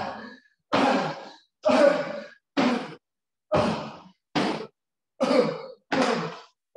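A man's heavy, breathy sighs of effort, about one a second, in time with climbing up steps.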